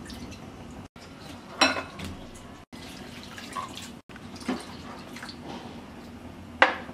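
Water splashing and dripping in a glass bowl as flattened rice (chira) is washed by hand, the water running off lifted handfuls. Two louder splashes come about one and a half seconds in and near the end, with smaller ones between.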